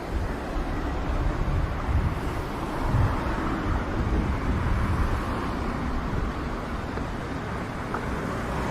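City street noise of passing road traffic, a steady low rumble with some wind buffeting the microphone.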